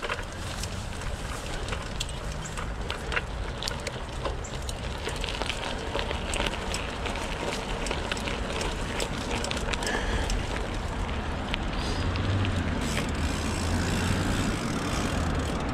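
Sirrus X bike rolling over a rough, overgrown dirt track: steady tyre noise on dirt and grass with frequent clicks and rattles. Near the end a low hum of passing road traffic comes in.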